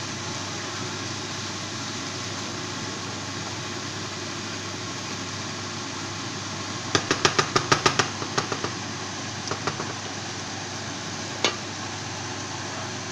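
Wooden spatula knocking against a frying pan while cabbage is stir-fried: a fast run of about ten knocks about seven seconds in, a few softer ones after, and one more near the end. A steady hiss runs under it.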